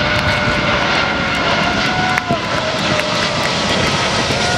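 Airbus A380's four Rolls-Royce Trent 900 turbofan engines on final approach: a loud, steady rush with high whining fan tones over it. The whine drops in pitch about two seconds in.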